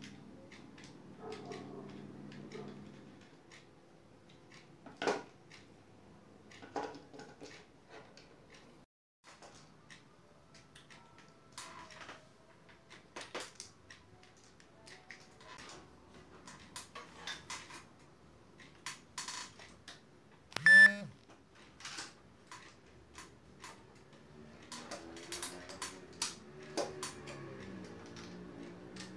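Scattered clicks and clinks of small metal hardware and a clear plastic plate being handled while a drill guide is put together, with one louder ringing clink about two-thirds of the way through.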